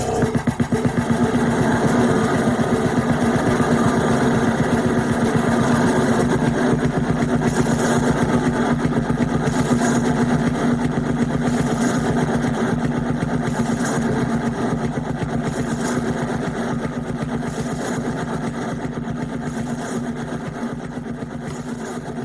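Harsh noise music: a dense, very fast pulsing buzz over a steady low drone tone, engine-like in texture, slowly fading over the last several seconds.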